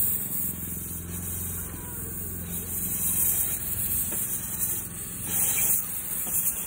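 Miniature steam locomotive Afon Glaslyn passing slowly at close range, its running gear rumbling steadily on the track with a constant hiss of steam; the hiss grows louder about five seconds in as steam blows off from the top of the boiler.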